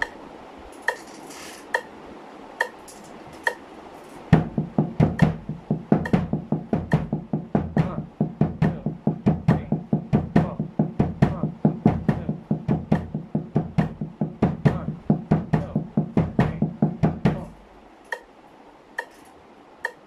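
A metronome ticks at 70 beats per minute. About four seconds in, a snare drum muffled with a towel comes in, played with sticks in sixteenth-note doubles, with kick drum strokes on the last two sixteenths of each beat. The drumming stops a few seconds before the end, leaving the metronome ticking alone.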